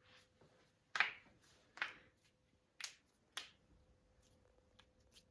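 Joints being cracked: a series of sharp pops, four loud ones spaced under a second apart in the first three and a half seconds, then a few fainter clicks.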